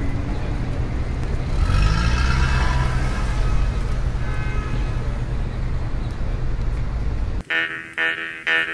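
A car running, a steady heavy low rumble of engine and road noise, with a faint higher tone over it for a few seconds. It cuts off suddenly about seven and a half seconds in, and music with a plucked instrument and a beat starts.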